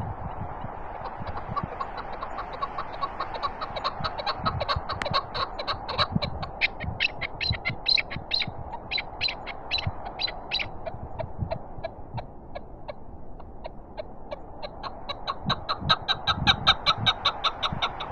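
Chukar partridge calling: a long run of quick, evenly repeated clucking notes that fades for a few seconds and then comes back louder near the end. Wind buffets the microphone underneath with a steady rush and low thumps.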